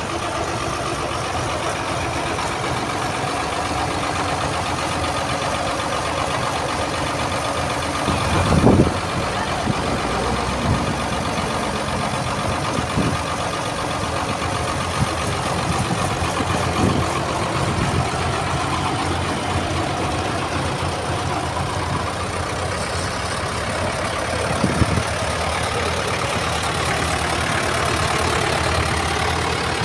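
Diesel tractor engines running at low revs as a Muir-Hill four-wheel-drive tractor and then a Ford 6600 drive slowly past, with a few short thumps along the way.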